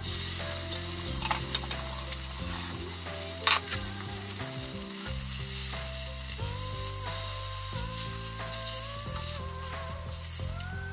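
Block of beef searing in hot oil in a frying pan: a loud, steady sizzle that starts suddenly as the meat goes in, with a sharp click about three and a half seconds in.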